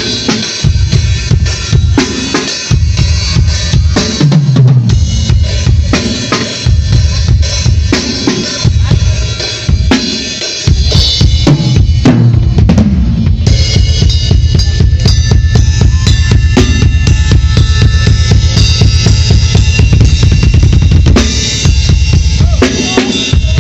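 Acoustic drum kit played continuously: rapid bass drum strokes under snare hits and cymbals, with a dense run of fast kick-drum strokes through most of the second half.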